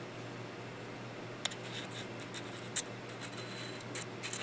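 Steel pistol slide being handled and worked onto its freshly oiled frame: soft metal scraping and rubbing, with a couple of light clicks about one and a half and nearly three seconds in.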